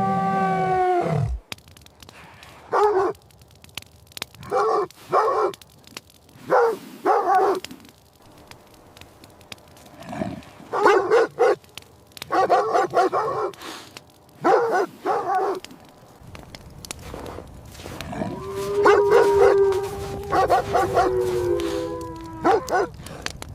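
Dogs barking repeatedly in short runs of two or three barks. A falling howl fades out about a second in, and a long howl with barks over it comes near the end.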